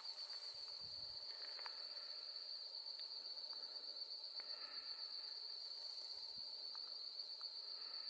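Insects trilling steadily at one high, even pitch, faint, with a few brief chirps in between.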